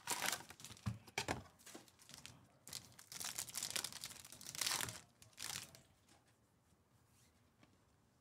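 Wrapping on Topps Chrome Jumbo baseball card packs being torn open and crinkled, in irregular bursts over the first five seconds or so, then dying away to quiet handling.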